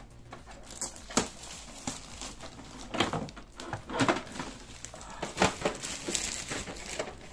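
Clear plastic protective wrap crinkling and rustling in irregular bursts as it is pulled off a new inkjet printer, with a few sharp clicks and knocks from handling.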